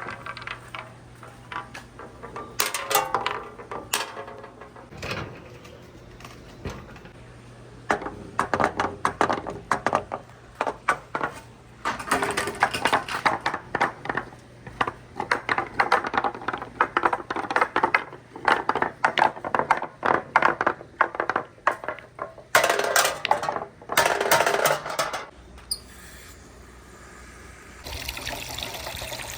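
Marbles clattering and clicking down a wooden marble run with water flowing through the course, in quick runs of knocks. Near the end the clicking stops and only the steady trickle of water is left.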